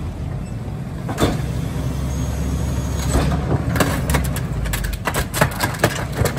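CNG McNeilus rear-loader garbage truck running with a low rumble. There is a sharp noise about a second in, then a quick run of clanks and rattles from about four seconds on.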